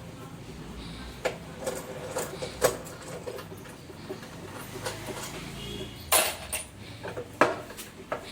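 Irregular metallic clinks and knocks of tools, screws and metal panels being handled while a washing machine is taken apart. The loudest knocks come a little after six seconds and again about a second later.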